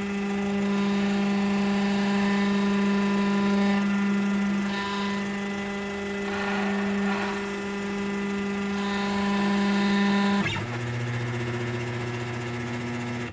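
Desktop CNC router's stepper motors whining steadily as the axes move during an XYZ probing routine. About ten and a half seconds in, the pitch drops abruptly as the motion changes.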